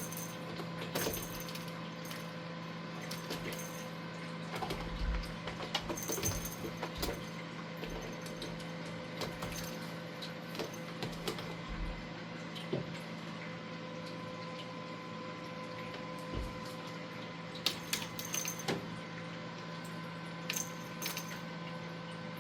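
A kitten playing on a cat tower: scattered light scratches, taps and small jingling clicks, some in quick clusters, over a steady background hum.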